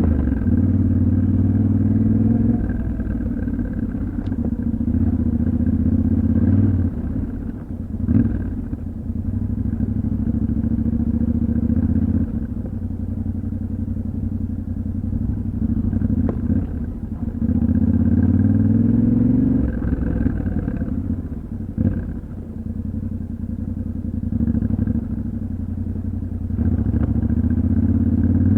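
Yamaha Ténéré 700's parallel-twin engine pulling and easing off over and over as the bike is ridden off-road, its pitch climbing under throttle and dropping back. A sharp knock comes about eight seconds in, and another shorter one later.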